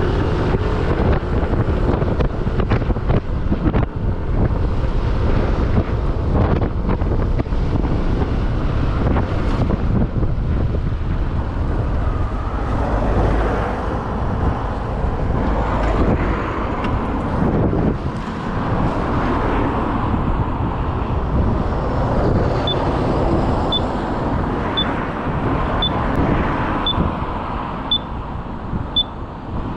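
Motorcycle riding along the road, engine and road noise under heavy wind buffeting on the microphone. From about three quarters of the way in, a short high beep repeats about once a second.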